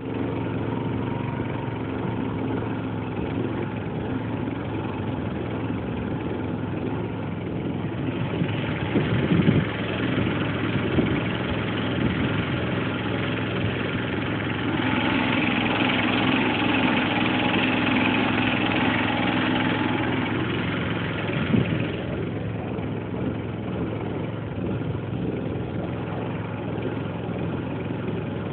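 Small boat motor running steadily under way. It grows louder for several seconds in the middle, with a few brief knocks.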